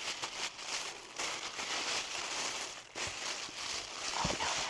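Crinkling and rustling of packaging as an item is unwrapped by hand, coming in short irregular spells.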